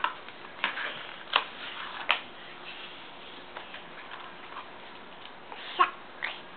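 Stiff paper flash cards being picked up and flipped by hand: a few short, sharp clicks and taps, four in the first two seconds and two more near the end.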